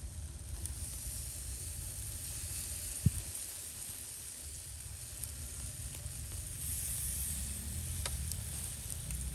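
Pork intestines sizzling on a wire grill over charcoal, a steady hiss. A single sharp thump about three seconds in, and a faint click near the end.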